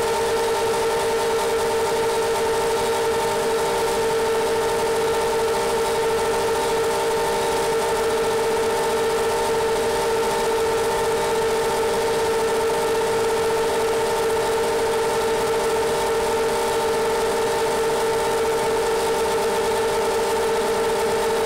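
iFlight XL7 quadcopter's brushless motors and propellers whining at a steady pitch under constant climbing throttle, heard from the onboard camera over a steady rush of wind hiss.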